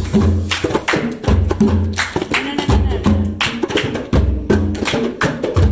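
A group drum circle playing hand drums together in a steady rhythm: deep bass strokes recur about every one and a half seconds, with quicker sharp strokes between them.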